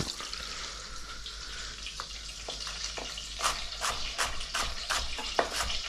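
Chef's knife slicing leeks on a wooden cutting board: sharp, quick chops about three a second, starting about two seconds in. Under them is a faint sizzle of butter bubbling in a pan.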